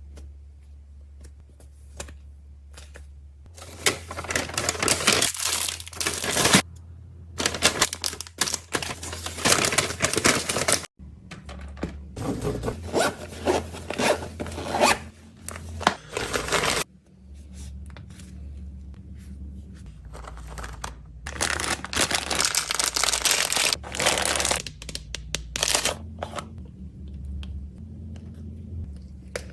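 Plastic wrappers and packaging being torn open and crinkled by hand, in four bursts of a few seconds each, over a steady low hum.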